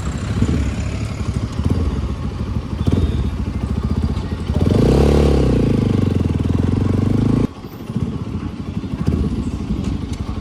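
Bajaj Pulsar RS200 single-cylinder engine running through an aftermarket Akrapovic exhaust while riding. About halfway through, the revs climb and hold loud for about three seconds, then drop suddenly as the throttle closes.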